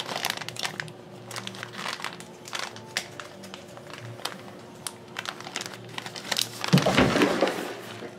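Plastic bag of shredded cheese crinkling as it is handled and opened, with a denser, louder rustle about six and a half seconds in.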